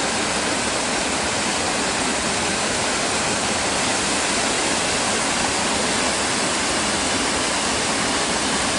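Waterfall and mountain creek rushing loudly and steadily, falling water pouring over rock.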